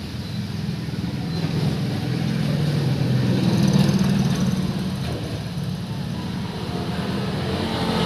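A motor vehicle's engine running steadily, swelling louder about halfway through and then easing off.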